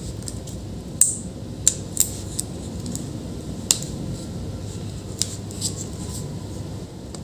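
A MacBook Air A1466's battery cable connector being fitted and pressed into its socket on the logic board by hand: a handful of small sharp plastic clicks and taps, the loudest about a second in.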